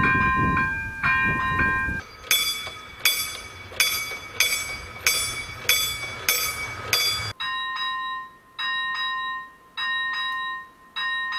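Czech level-crossing warning bells ringing in three quick cuts: first over the rumble of a passing train, then a faster ringing at about three strikes every two seconds, then a slower one at about one strike a second.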